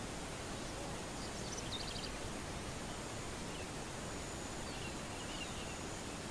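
Steady outdoor background hiss with faint bird calls: a quick run of high ticking notes about two seconds in, and a few soft chirps later on.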